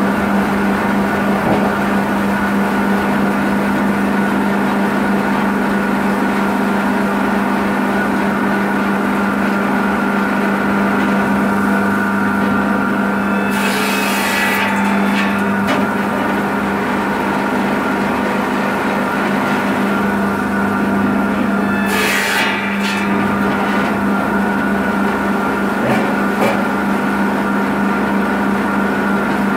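Electric log saw bench with a carbide-tipped (widia) circular blade, driven by a 220 V single-phase motor, running with a steady hum. The blade cuts through branches as the carriage is pushed in: a brief loud cut about halfway through, another about three-quarters through, and a lighter one shortly after.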